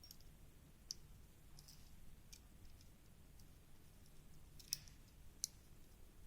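Sparse faint clicks of a thin aluminium can-metal ring being worked onto the joint of a bamboo flute, with two sharper clicks close together a little past the middle.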